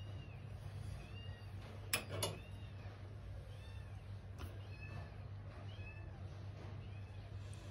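A cat mewing repeatedly, with short high calls about one a second. Two sharp clicks about two seconds in are the loudest sounds.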